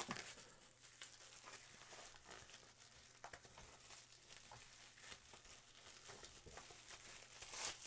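Faint crinkling of plastic bubble wrap being handled and unfolded, in soft scattered crackles that get louder near the end.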